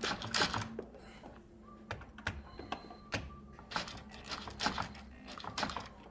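Irregular light clicks and knocks from hands working the power drill and the sofa leg that is being screwed on.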